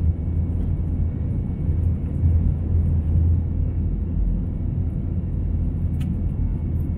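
Steady low rumble of an Airbus A321's jet engines and airflow, heard inside the cabin during the climb just after takeoff. There is a faint click about six seconds in.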